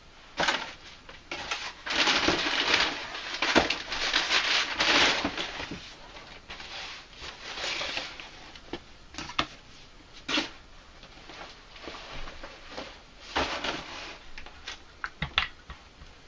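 Rustling and scattered clicks and knocks from hands handling the kit's tools and packaging, densest in the first few seconds, with a few sharp clicks near the end.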